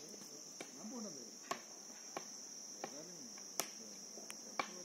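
Steady high-pitched insect drone, with a few sharp clicks scattered through it and faint voices underneath.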